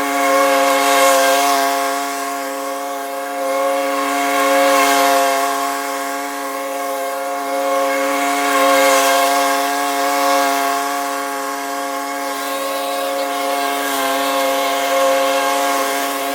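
Small engine of a handheld lawn tool running at a steady high speed, with the noise swelling louder every few seconds.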